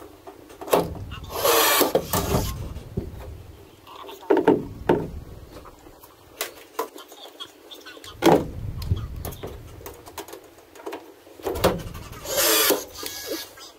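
Milwaukee cordless power tool run in two short bursts against the aluminum boat hull, one about a second and a half in and one near the end, with knocking and clattering of the tool and metal parts in between.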